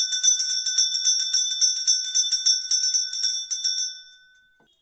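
Puja hand bell (ghanti) rung rapidly, about six strokes a second, with a clear ringing tone. The strokes stop about four seconds in and the ringing dies away.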